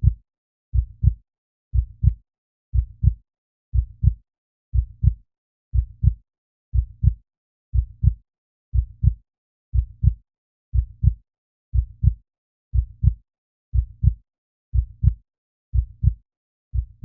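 Heartbeat sound effect: a slow, steady double thump, about one beat a second, repeating evenly.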